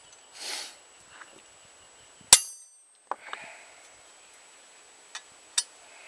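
A single sharp hammer blow on a cold chisel cutting into steel, about two seconds in, with a brief metallic ring. A couple of faint clicks follow near the end.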